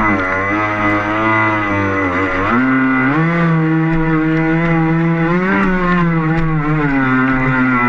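Electric motor of a Rio EP radio-controlled boat whining at speed, its pitch dipping and climbing again several times as the throttle and load change in the rough water, with a thin steady high whine over it.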